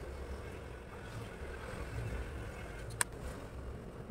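A low, steady rumble, with one sharp click about three seconds in, as a hand handles a metal ID card punch.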